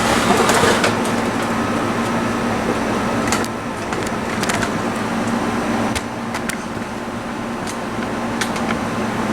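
Window air conditioner running with a steady low hum. A higher steady tone stops with a click about three seconds in, and scattered clicks and knocks come from handling the unit.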